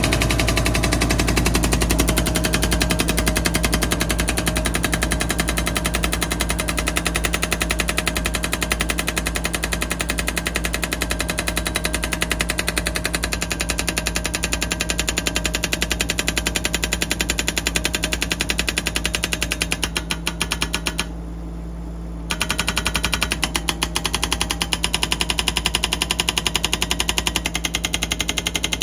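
Hydraulic rock breaker on a 2-tonne mini excavator hammering rock in a rapid, steady stream of blows, with the excavator's engine running underneath. The hammering stops for about a second about two-thirds of the way through, then starts again.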